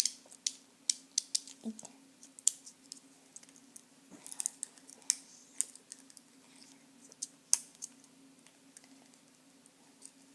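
Irregular small clicks and taps of hands fiddling with a small package, trying to get it open, over a faint steady hum.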